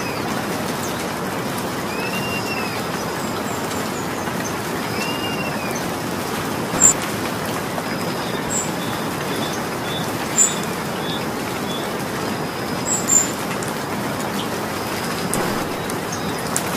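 Steady rain falling with an even hiss. A bird calls over it: three arched chirps in the first few seconds, then short high chirps now and then.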